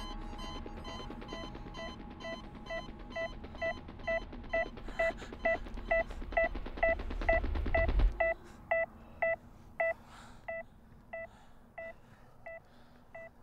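Heart-rate beeps from a Lifepak 12 cardiac monitor: short, evenly spaced beeps at about two and a half a second, a racing pulse, that slow to about one and a half a second after eight seconds as the patient's rate comes down. Under the fast beeps a low drone swells and cuts off suddenly about eight seconds in.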